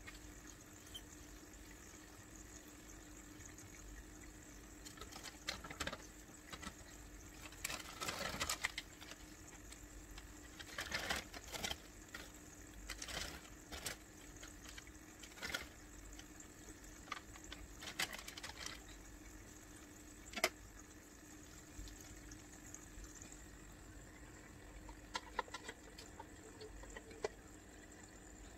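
Faint water splashing and pouring in an aquarium in irregular short bursts, with small clicks, over a steady low hum.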